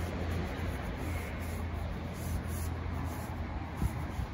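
A paintbrush brushing wood preserver onto bare pine battens: soft repeated bristle strokes over a steady low background rumble, with a couple of light knocks near the end.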